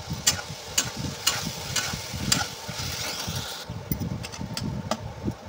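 Chopped onions sizzling in oil in a kadai while a spoon stirs them, scraping against the pan about twice a second.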